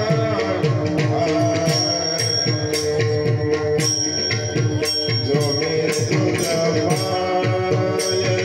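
Kirtan music without singing: brass hand cymbals (taal) clash about once or twice a second with a bright ringing after each stroke, over a quick, steady hand-drum beat and held melodic tones.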